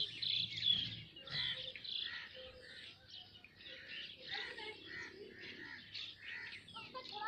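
Many small birds chirping and chattering over one another in a continuous flock chorus, a little louder in the first second.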